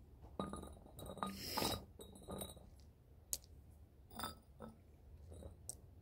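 Glass bottles clinking and knocking as they are handled and set down on a hard wet surface: a scatter of separate clinks, the sharpest about three seconds in.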